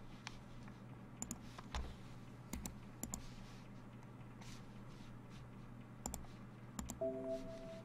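Faint, scattered clicks and light taps, a few in quick pairs, with a short low tone about seven seconds in.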